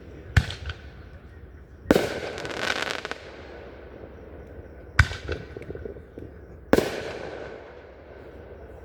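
Fireworks exploding in four sharp booms, each with a fading echo. The second boom is followed by about a second of crackling.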